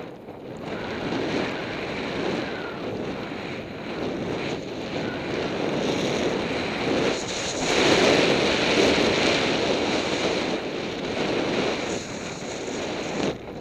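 Wind rushing over a helmet camera's microphone, with the hiss of skis running fast through deep powder snow. It swells to its loudest about eight seconds in and drops away suddenly at the very end.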